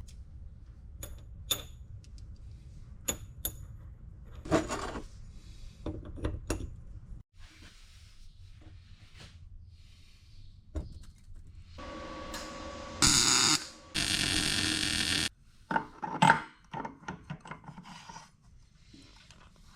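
Workshop sounds of parts and hand tools being handled: scattered clicks and knocks of metal on metal. About two-thirds of the way through come two short bursts of loud rushing noise, the second about a second and a half long, then more knocks.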